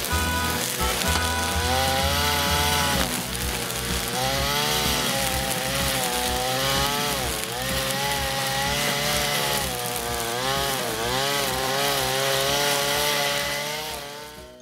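Brush cutter's small engine running as its nylon-cord head cuts weeds, its pitch rising and falling as the line meets the growth, over background music with a steady beat. Both fade out near the end.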